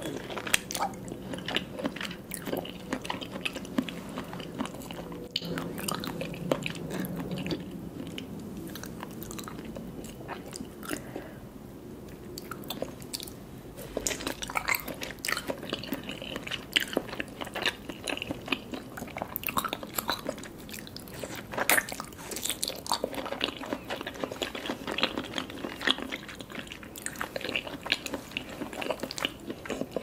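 Close-miked biting and chewing of raw salmon sashimi, with many small irregular mouth clicks. The chewing eases off for a few seconds around the middle.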